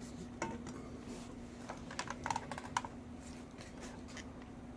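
Light clicks and taps of small objects being handled, a few scattered and then a quick cluster about two seconds in, over a steady low hum.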